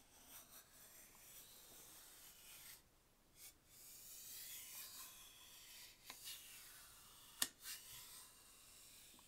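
Quiet rubbing and sliding of packaging being handled during an unboxing, with a few small clicks and one sharp click about seven seconds in.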